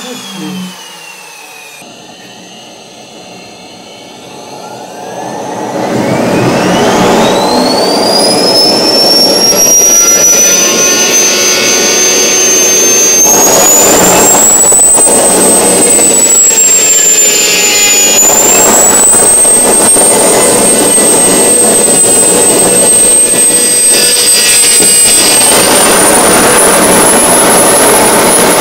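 Homemade small turbojet engine: a whine falls away in the first two seconds, then the engine lights and spools up, its turbine whine rising steeply over a loud combustion roar. The whine then holds high, dipping and climbing a little, and rises again near the end.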